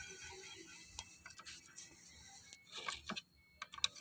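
Faint metallic clicks and ticks of a socket wrench on an extension turning the clutch spring bolts of a motorcycle clutch pressure plate, a few scattered clicks with the strongest ones near the end.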